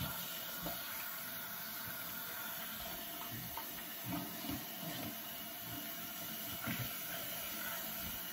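Bathroom sink tap running in a steady hiss, with irregular soft splashes and knocks as a face is washed under it.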